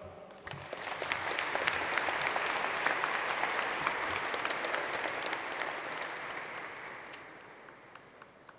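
Audience clapping, building about a second in and dying away near the end.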